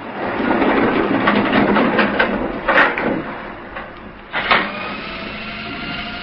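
Radio-drama sound effects: a sudden burst of loud, dense clattering noise with two sharp bangs, about three and four and a half seconds in.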